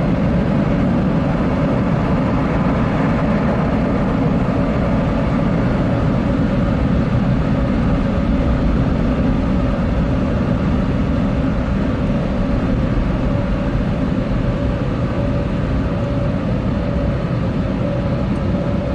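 Automatic car wash machine running steadily around the car, heard from inside the cabin as a loud, even rumble with a faint steady whine.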